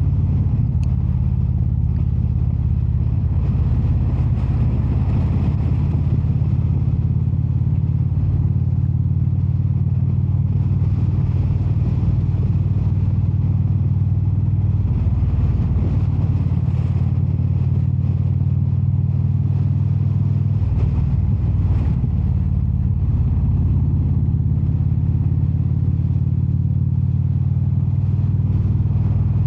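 Indian Super Chief Limited's V-twin engine running while riding at a steady road speed, its low note shifting a few times with the throttle.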